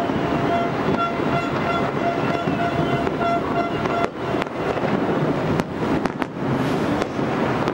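Distant fireworks going off: scattered sharp bangs from about four seconds in, over steady wind noise on the microphone. A steady pitched tone sounds through the first four seconds.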